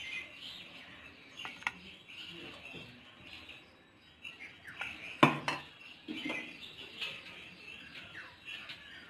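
Faint birds chirping in the background, with a few clinks of kitchen utensils against the pan. The sharpest clink comes about five seconds in, with lighter clicks about one and a half seconds in.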